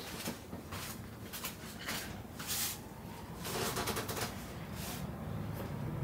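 Rustling with a scatter of small clicks and soft knocks, from people shifting and settling on a tatami floor.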